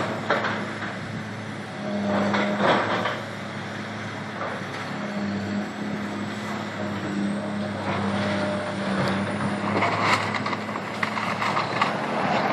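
Caterpillar 365B L excavator's diesel engine running steadily as it demolishes a brick building, with crashes of falling rubble and debris near the start, two to three seconds in, and around ten seconds in. A car passes close by near the end.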